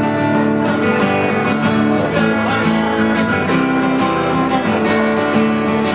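Acoustic guitar strummed in a steady rhythm, playing the instrumental intro of a song.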